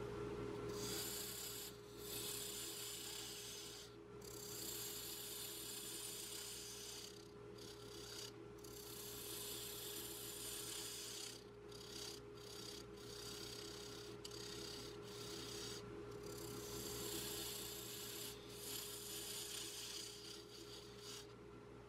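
Sandpaper rubbing against an ash workpiece spinning on a wood lathe: a hiss that comes in stretches of a few seconds with short breaks, over the lathe motor's steady hum.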